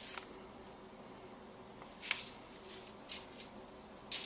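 Dried thyme being shaken from a spice jar onto chicken: a few short, dry shakes about two seconds apart, the last one the sharpest.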